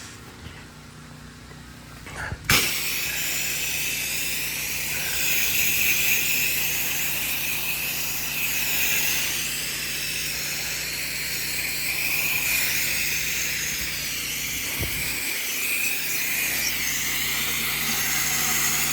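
Soft-wash spray rig running: a steady motor hum, then about two and a half seconds in a hose nozzle opens and water spray hisses steadily as the house siding is soaked with chlorine wash.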